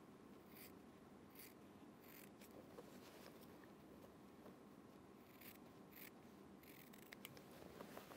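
Faint snips of small scissors cutting through cotton wax-print fabric, trimming down a seam allowance to cut bulk before the bias binding is folded over: about six short cuts, three close together at first, then three more after a pause.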